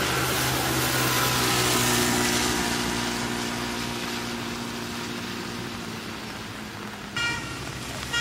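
Steady running noise of a road vehicle, a low engine hum under a broad hiss, with two short high-pitched beeps about a second apart near the end.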